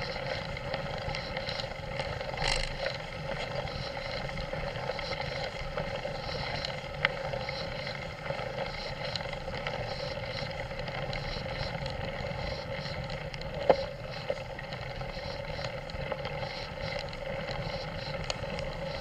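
Mountain bike rolling over a gravel track, heard from a camera mounted on the bike: a steady rumble and rattle of tyres on loose gravel, with a couple of sharp knocks from bumps, one louder about two-thirds of the way through.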